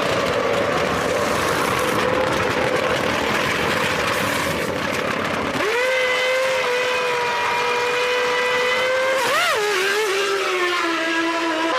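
Formula One car's V10 engine running at high revs. About halfway through it becomes a clear, steady engine note. Near the end the pitch jumps up and down quickly, then settles lower as the car slows.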